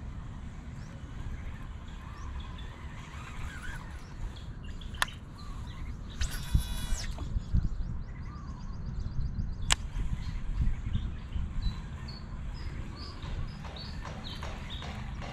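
Small birds chirping over a steady low wind rumble on the microphone. About five seconds in a sharp click, then a brief whoosh lasting about a second, and another sharp click near the ten-second mark.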